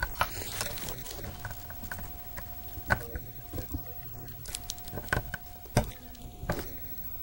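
Scattered light clicks and taps of multimeter probe tips being placed on the pins of a furnace control board, with a faint steady thin tone underneath.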